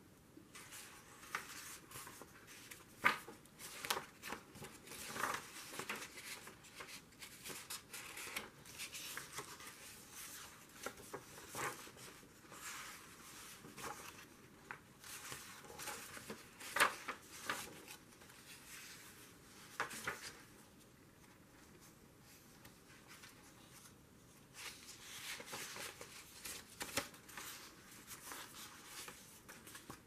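Loose paper book pages being handled and shuffled, giving irregular soft rustles and taps, with a quieter few seconds past the middle.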